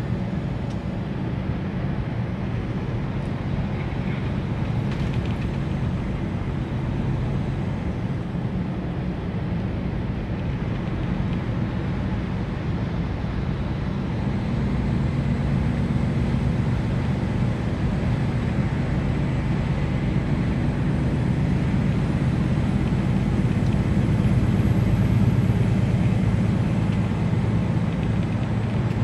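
DAF truck's diesel engine droning steadily under road and tyre rumble, heard from inside the cab at motorway speed, growing a little louder about halfway through.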